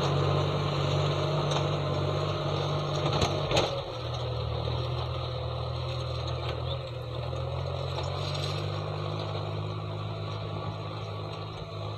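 John Deere 5055E tractor's three-cylinder diesel engine running steadily under load while pulling a disc plough through dry soil, growing fainter as the tractor moves away. A few sharp knocks a little over three seconds in.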